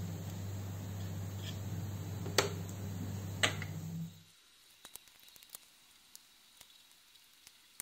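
Rigid LED strip clicking sharply twice, about a second apart, as it is handled against a plastic T5 light fitting, over a steady low hum. About four seconds in, the hum stops and it drops to near silence with a few faint ticks.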